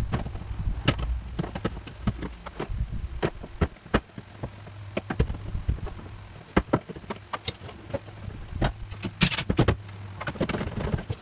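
Irregular clicks and knocks of plastic interior trim and push pins being pried loose and handled, over a steady low hum. A brief scraping rush comes about nine seconds in.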